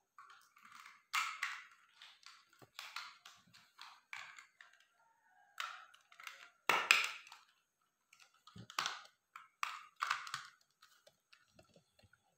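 Plastic toy building blocks clicking and knocking together as they are handled and pressed onto a small block-built toy car, in irregular short clacks with the loudest knock about two-thirds of the way through.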